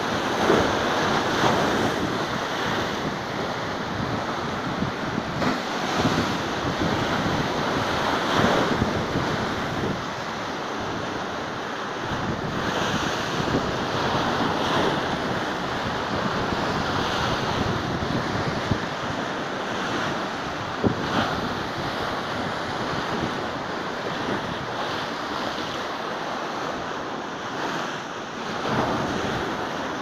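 Stormy sea: waves breaking and washing in, the surf swelling and easing every few seconds, with wind buffeting the microphone.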